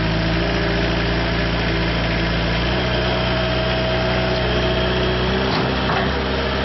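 JCB 515-40 teletruck's engine running steadily while the machine works a pallet, with a higher whine over the engine note. The engine note shifts slightly about two-thirds of the way through.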